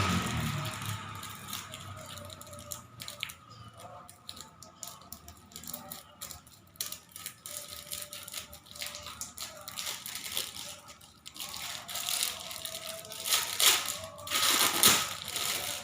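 Plastic packaging of a toy set being opened and handled: irregular crinkling, rattling and small clicks, with louder rustles near the end.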